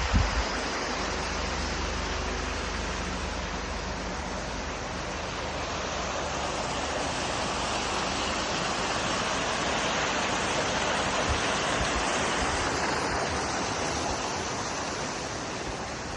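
Steady rush of water from a waterfall or mountain stream. A brief low thump right at the start.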